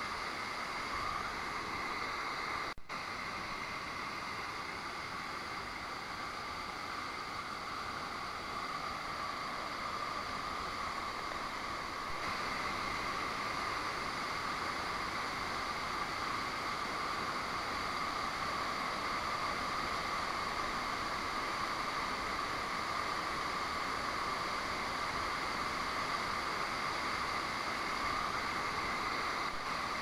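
A 20 m waterfall and its stream, heard as a steady rush of falling water. There is a brief dropout about three seconds in, and the sound is a little louder from about twelve seconds in.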